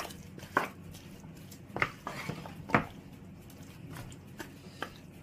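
Wooden spatula stirring raw chicken wings and garlic in a coated pot, with scattered sharp knocks of the spatula against the pot, about five in all, the loudest nearly three seconds in. A faint steady hum runs underneath.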